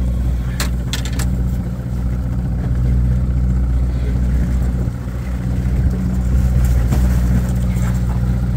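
Boat's outboard motor running steadily at trolling speed, a steady low hum. A few sharp clicks come in the first second or so.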